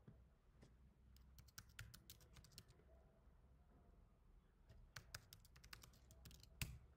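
Faint computer keyboard typing in two short runs of keystrokes, with one louder key click near the end.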